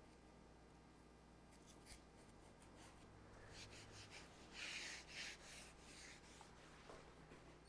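Near silence with a few faint, short scratchy rubbing strokes about four to five and a half seconds in.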